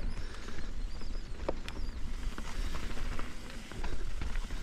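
Mountain bike rolling fast down a dirt singletrack: tyres on dirt and leaves, with the bike rattling and clicking over bumps and roots, a sharper knock about one and a half seconds in, over a steady low rumble.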